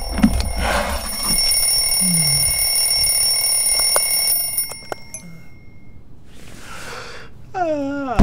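Alarm clock bell ringing steadily as a cartoon sound effect, cutting off suddenly about four and a half seconds in. Near the end comes a short swish and then a falling-pitch sound effect.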